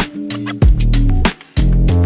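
Background music with a steady beat: drum hits, sliding bass notes and plucked guitar.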